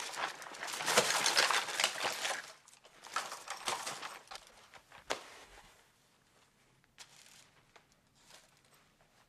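A bag's contents being dumped and shaken out: rustling and crinkling of cloth, paper and small objects for about two and a half seconds, another burst a little later, then a few light knocks as items are handled.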